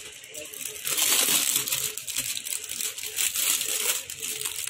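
Plastic packaging crinkling and rustling as it is handled, loudest from about a second in.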